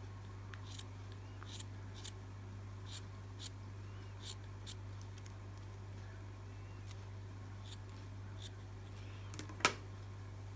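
Small scissors snipping through strands of wool yarn: a string of short, crisp snips at an uneven pace, with one louder click near the end, over a steady low hum.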